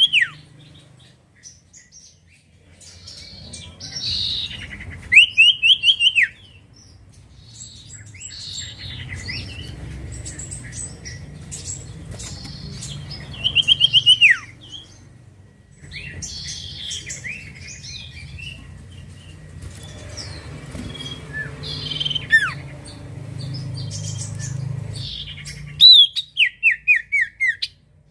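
Common iora (cipoh) singing: three loud, rapid trills of repeated notes, each about a second long and roughly eight seconds apart, with softer chirps and whistles in between.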